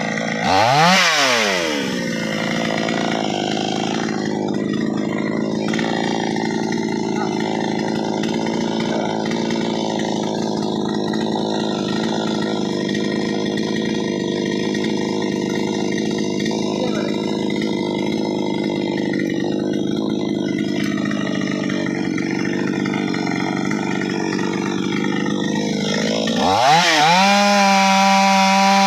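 Two-stroke chainsaw engine. It drops from high revs and blips once, then runs at a steady lower speed for most of the stretch. Near the end it revs sharply back up to full speed.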